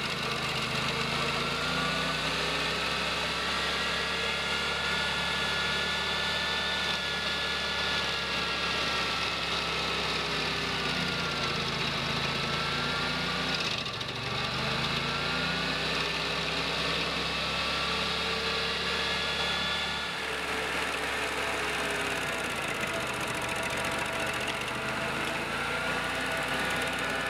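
Stump grinder's engine running under load as its toothed cutting wheel chews into a tree stump, with a steady grinding hiss. The engine pitch sags and recovers several times as the wheel bites into the wood.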